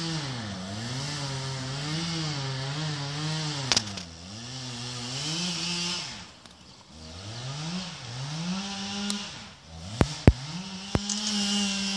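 Two-stroke chainsaw cutting into the trunk of a large cottonwood being felled, its engine pitch sagging under load and picking back up again and again. About halfway through it falls to a low idle for about a second, then revs back up. A few sharp clicks sound near the end.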